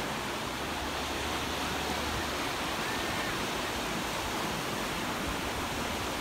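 Atlantic Ocean surf breaking onto the beach: a steady, even rush of waves.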